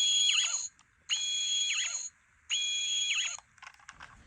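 Deluxe Fifteenth Doctor sonic screwdriver toy playing its hidden-mode Master's laser screwdriver sound effect on a loop: three bursts of about a second each of a high electronic whine ending in a quick falling sweep, with short gaps between. A few light clicks of handling come near the end.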